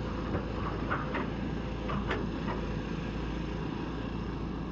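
Volvo EC210D excavator's D5E diesel engine running steadily under test, now that a new fuel pressure sensor has been fitted and it no longer stalls.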